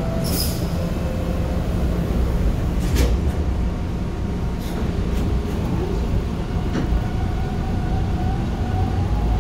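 Bombardier T1 subway train running, heard from on board: a steady low rumble with a few sharp clicks and a faint whine that rises slightly in the second half.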